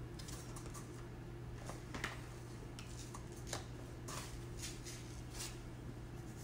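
A few scattered light clicks and rustles of small objects being handled, over a steady low hum.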